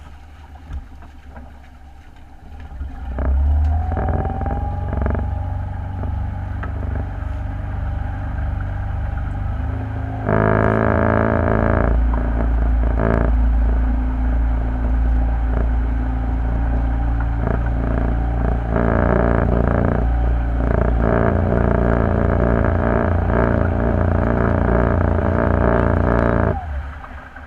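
An engine running, starting about three seconds in with a brief rise in pitch, growing suddenly louder at about ten seconds and cutting off shortly before the end.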